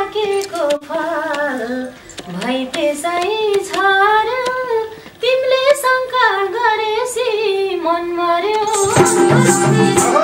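A woman singing a Nepali dohori folk verse, a single voice in long bending phrases over a few light percussion taps. Near the end the instrumental accompaniment comes in under her held note.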